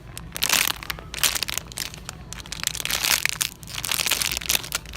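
Close handling noise: irregular crinkling and rustling with scattered clicks, as toys or their plastic packaging are handled near the microphone.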